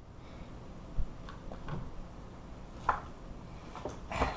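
A few faint, scattered knocks and clicks of the metal disk padlock being handled and set in place, with a sharper click near the end.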